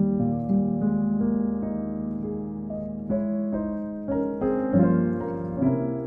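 Soft piano music, slow chords and a melody of held notes.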